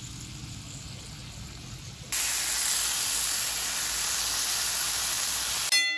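Food sizzling on a hot cast-iron sizzle plate, a steady hiss that jumps much louder about two seconds in as stir-fried konnyaku is spooned onto it. Near the end the sizzle cuts off and a single bell-like ding rings out and fades.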